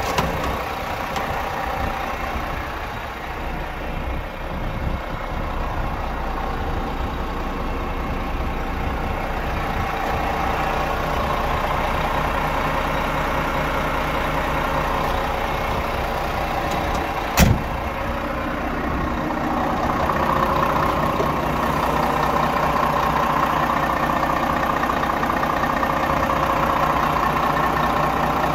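Volvo FM 420 truck's diesel engine idling steadily, with one sharp click partway through.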